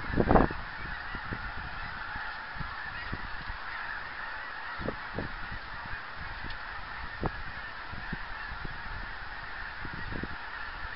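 The continuous massed honking of a large flock of geese, a dense unbroken chorus. A brief thump comes just after the start, with scattered low bumps throughout.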